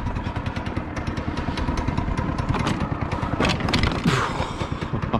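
Yerf-Dog 3203 go-kart's small single-cylinder engine running steadily as the kart drives through snow. A few knocks and rattles come in about three seconds in, while the engine pitch swings up and down.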